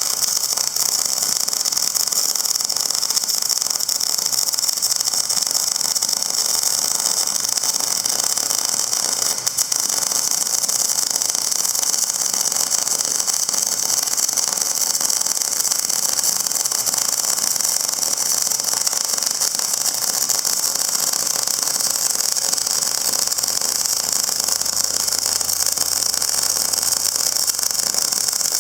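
Steady, loud hiss with a machine whir under it, unbroken throughout; a faint low hum joins in near the end.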